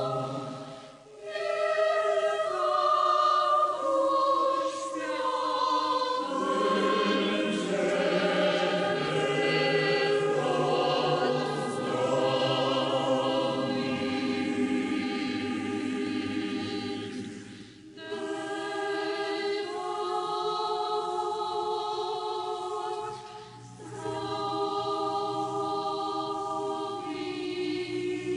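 Orthodox cathedral choir singing a slow hymn unaccompanied, in long held chords, with three short breaks between phrases.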